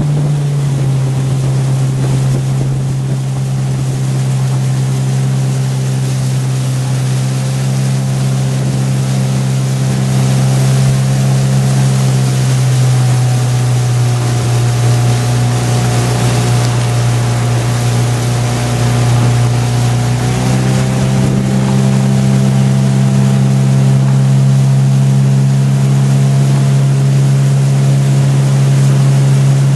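Outboard motor of a motor launch running steadily at cruising speed, its pitch shifting slightly a few times, over a steady hiss of water and wind.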